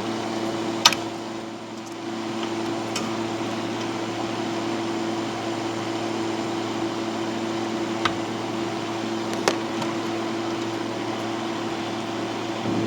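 Steady hum of the HP 54542A oscilloscope's cooling fan, with a few sharp clicks, the loudest about a second in.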